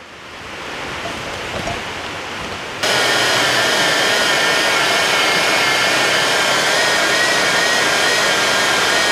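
Harbor Freight portable band saw cutting a steel frame member. The saw runs quieter at first. About three seconds in, the blade bites into the steel and the sound jumps louder and holds steady, with a high ringing whine.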